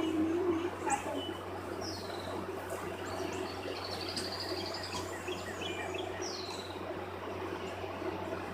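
Birds calling outdoors: scattered chirps, two short descending whistles and a brief even trill, over a steady low hum.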